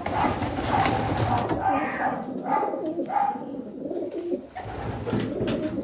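Domestic pigeons cooing repeatedly, with a brief rush of wing flapping at the start.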